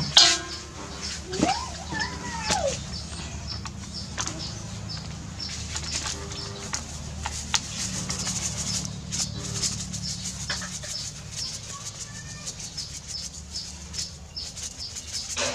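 Food-preparation handling noises: a sharp knock as a cleaver is set on a wooden chopping board, then scattered light taps and rustles as seasoning is shaken from a packet into a steel bowl. A bird calls once, a single rising-and-falling note, about two seconds in, over a low background hum.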